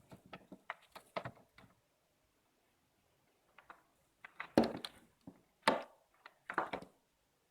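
Handling noises from unboxing a power supply: a run of small clicks and taps for the first second and a half, then, after a pause, three louder knocks and rustles in the second half.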